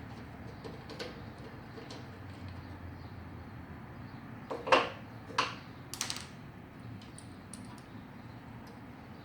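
Scattered light clicks and three sharper knocks about halfway through: metal parts and hand tools handled while the carburetor is taken off a lawnmower engine.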